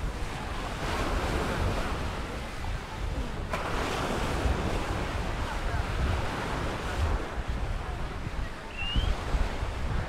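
Sea surf washing onto a sandy beach, with wind buffeting the microphone in a low rumble. The wash turns louder and brighter about three and a half seconds in, and a short high rising chirp sounds near the end.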